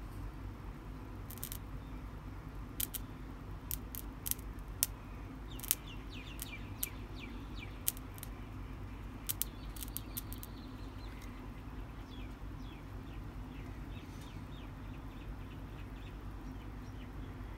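Sharp clicks, more than a dozen in small clusters over about nine seconds, as a bare wire is touched across the terminals of a small sealed lead-acid battery and sparks against them, shorting it to check for current. Birds chirp in short falling notes in the background.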